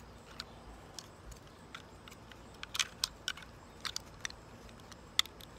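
Small, sharp plastic clicks and taps from the red rocker-switch cover being pressed and snapped back onto a scroll saw's plastic switch housing. They come scattered and irregular, with a cluster about three seconds in and another click near the end.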